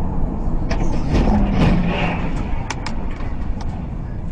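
Car driving on a highway as picked up by a dashcam: steady low road and engine rumble, with a few sharp clicks and a brief low hum between one and three seconds in.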